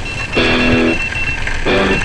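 Background music with guitar chords coming in short blocks, one about half a second in and another near the end, over a low rumble.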